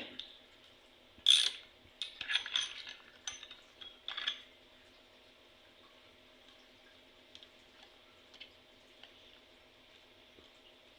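A socket ratchet clicking in a few short bursts as the spark plug is backed out of a string trimmer's engine, with a few faint ticks after.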